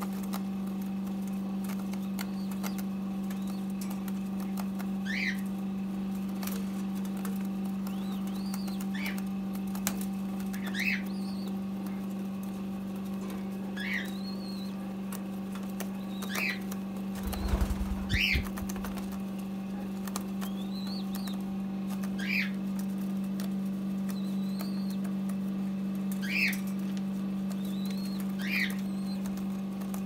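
Young white dove giving short, high squeaky begging peeps about every two seconds and flapping its wings, with a louder flurry of wingbeats about halfway through. A steady low hum runs underneath.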